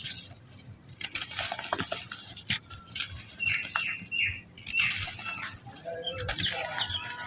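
Dry, very soft black sand balls crumbling and being crushed, giving irregular crunching and crackling bursts.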